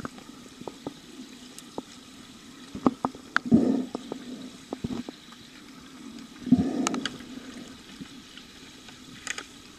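Underwater hockey heard from underwater in a pool: a steady low hum with scattered sharp clicks of sticks and the lead puck striking the pool bottom, and two gurgling rushes of water, about three and a half and six and a half seconds in.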